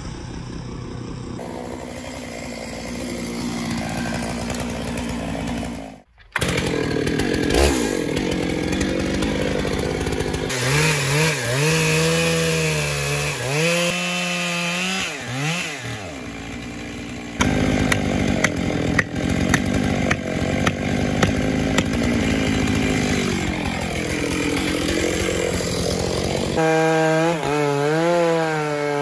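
Stihl two-stroke chainsaw cutting into a maple burl trunk. The engine pitch rises and drops as it revs and slows under load in the wood, with a brief break about six seconds in.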